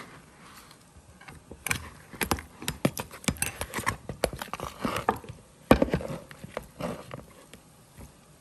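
Metal spoon clicking and scraping against a bowl while scooping raw shrimp, a run of irregular knocks with the loudest about two thirds of the way through.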